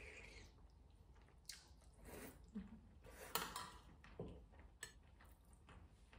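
Close-up eating of coconut chicken noodle soup: soft slurping and chewing of noodles, with a few light clicks of cutlery against the bowl.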